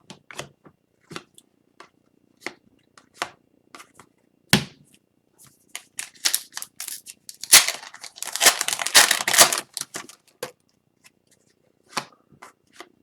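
Scattered light clicks and taps of cards being handled, then a foil hockey card pack being torn open, a dense rush of tearing and crinkling lasting a couple of seconds just past the middle.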